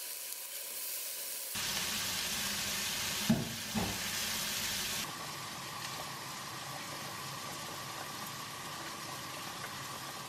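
Pork belly sizzling in a frying pan, then about a second and a half in, a change to water boiling hard around sweet potatoes in a pot, with two short knocks a moment later.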